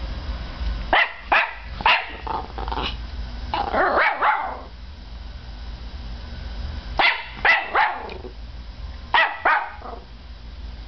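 Norfolk Terrier puppy barking in three bursts of short, sharp barks: a run of five or so about a second in, ending in a rougher stretch around four seconds, then about four more near seven seconds and three near nine seconds.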